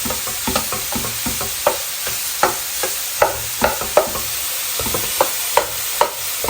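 Chicken chunks and sliced mushrooms sizzling in butter in a frying pan while a utensil stirs them, its strokes scraping and tapping the pan about two or three times a second.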